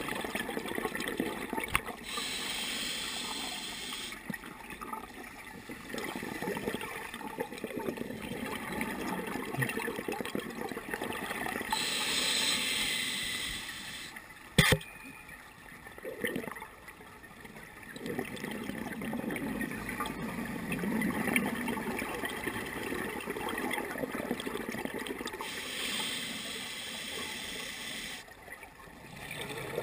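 Scuba regulator exhaust bubbles heard underwater through a camera housing: three gushing bursts of bubbles about ten seconds apart, with a low rush of water noise between them. A single sharp click comes about halfway through.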